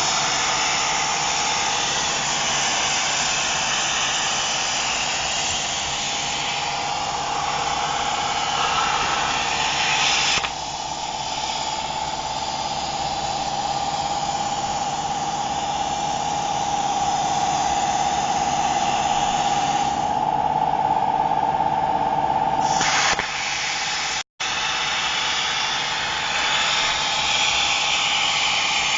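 Homemade CNC machine (router spindle or plasma torch) running steadily with a hissing whine and a held tone. The mix changes several times as the work goes on, and the sound drops out for an instant about two-thirds through.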